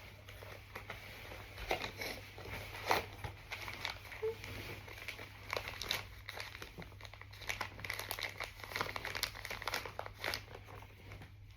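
Packaging of a blind box being opened: a plastic or foil wrapper crinkling and rustling in irregular crackles, with occasional small tearing sounds.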